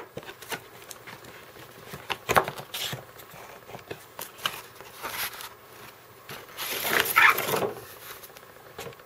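Hands opening a paperboard model box: scattered taps, clicks and scrapes of cardboard as the lid flap is lifted. About seven seconds in comes a longer, louder scraping rustle as the styrofoam-packed insert is slid out of the box.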